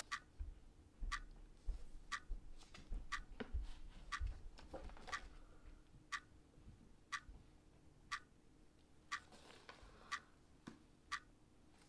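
Clock ticking, about once a second, with softer rustles and knocks in the first half.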